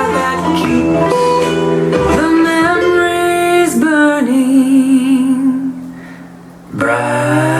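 Acoustic guitar song playing, with a long wavering held note that fades briefly about six seconds in before a new chord comes in.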